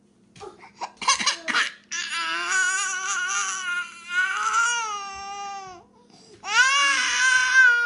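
Infant crying after its twin has taken its pacifier: a few short sobs, then a long wail of about four seconds, and a second wail starting near the end.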